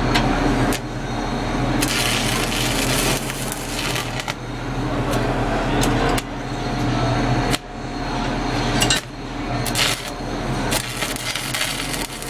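Stick welding arc crackling and sizzling as tack welds are laid, cutting out briefly and restarting several times as the arc is broken and struck again, over a steady low machine hum.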